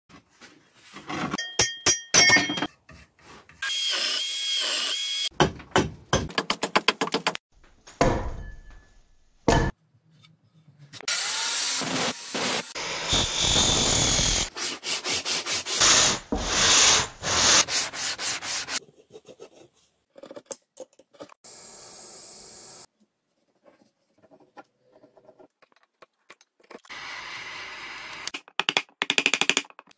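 A run of short, abruptly cut workshop sounds of tools working wood. Loudest about halfway through is an angle grinder with a sanding disc sanding down an oak axe handle.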